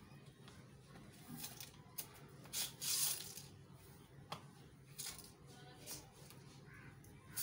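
A broom sweeping a concrete floor in short, separate strokes, brushing leaves and grit, the loudest strokes about two and a half to three seconds in. A single sharp tap a little after four seconds.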